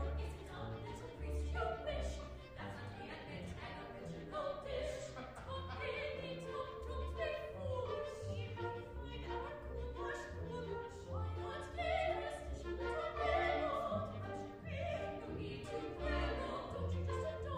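Three opera singers singing an ensemble passage together over instrumental accompaniment with a repeating low bass line.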